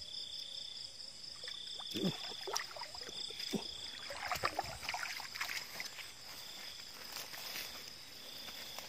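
Night insects calling: a steady high-pitched trill and a lower pulsing call that comes back about every second and a half. Irregular rustling and light footsteps through grass come in the middle.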